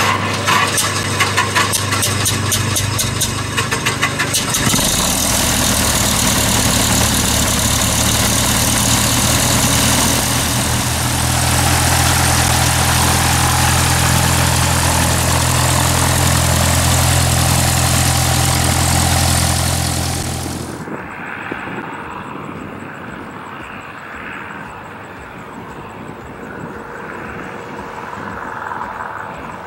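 Close-up engine run of a Cessna 172N Skyhawk's four-cylinder Lycoming engine. It runs unevenly for the first few seconds, then settles into a loud, steady run. About two-thirds of the way in the sound cuts abruptly to a much fainter, distant aircraft engine sound.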